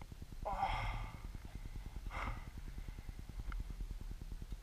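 A person's heavy breathing close to the microphone: two loud exhales, one about half a second in and one about two seconds in, over a low steady rumble.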